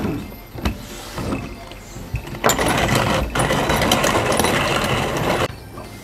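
A small motorised machine runs for about three seconds, starting a couple of seconds in, with a brief break after its first second. It then cuts off abruptly.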